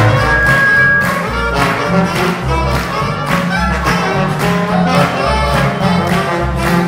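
A small jazz band playing a swing tune live: double bass and strummed acoustic guitar keep a steady beat under horns, with a held horn note near the start.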